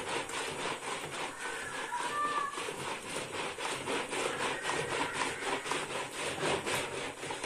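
Plunger mixer churning white liquid in a lidded plastic pitcher: rhythmic swishing strokes, about three a second, that stop near the end.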